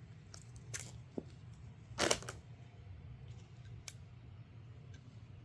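Light handling noises: a few faint clicks and a short, louder rustle about two seconds in, over a low steady hum.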